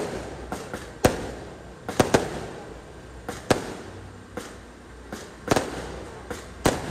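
Aerial fireworks bursting overhead: about a dozen sharp bangs at an irregular pace, sometimes two in quick succession, each trailing off in a short echo.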